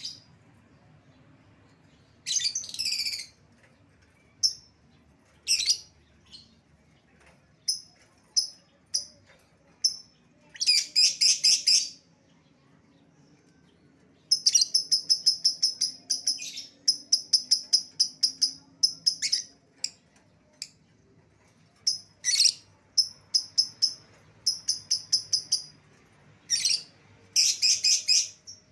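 Lovebird calling: shrill single chirps with several long bouts of rapid, chattering calls (ngekek), each bout lasting one to two seconds.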